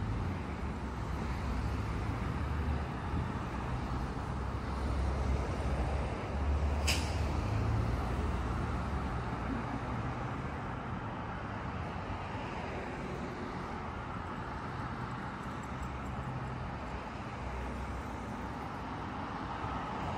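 City street traffic: cars passing close by, with engine rumble and tyre noise rising and falling as each goes past. A brief sharp high sound cuts through about seven seconds in.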